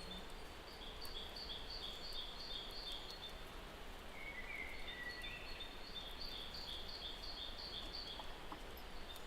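Outdoor nature ambience: a steady background hiss with two runs of high, evenly repeated calls, about two to three a second, from a bird or insect, and one short chirp a little before the middle.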